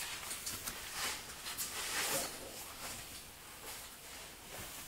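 Soft irregular rustling and shuffling footsteps, with light taps and scrapes of someone moving about and handling things.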